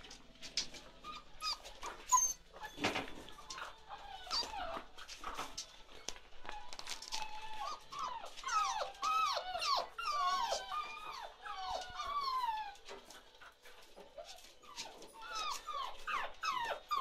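A litter of seven-week-old chocolate Labrador puppies whining and yelping, many short high calls overlapping and thickest in the middle and again near the end. Light clicks and a sharp knock about three seconds in.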